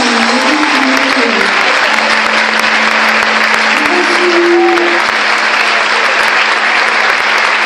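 Congregation applauding steadily, with a single low note held by the band underneath and a few soft instrument notes.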